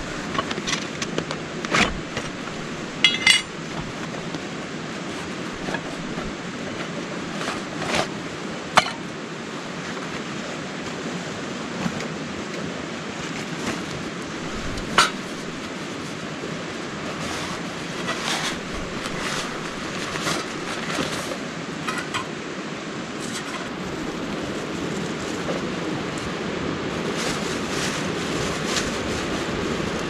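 Metal camp gear clinking and knocking as it is set down piece by piece, scattered sharp clinks with a cluster of lighter ones in the second half, over a steady rushing background noise.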